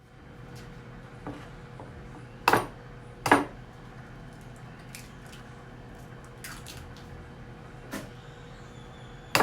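Microwave oven running with a steady hum, under kitchen clatter: two sharp knocks about two and a half and three and a half seconds in, and a few lighter taps and clicks.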